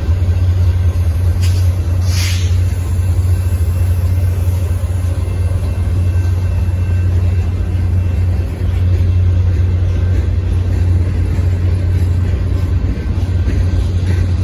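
Freight cars of a Union Pacific manifest train rolling past at close range: a steady rumble of steel wheels on the rails. A brief high hiss or screech comes about two seconds in.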